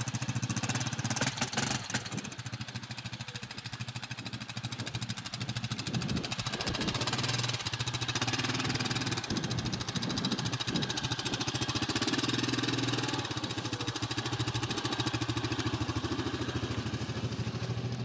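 Quad bike (ATV) engine running steadily at low speed close by, with a rapid even pulse.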